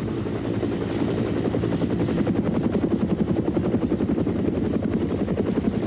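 Sikorsky HRS helicopter coming in to land, its rotor beating in a rapid, even chop over the engine's drone.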